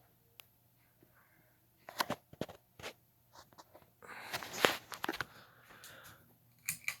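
Scattered sharp clicks and knocks with a short stretch of rustling, like handling noise.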